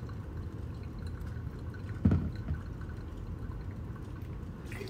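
Brewed coffee dripping through the wet grounds and paper filter of a Chemex into its glass carafe, a faint trickle over a low steady hum, with one short low sound about two seconds in.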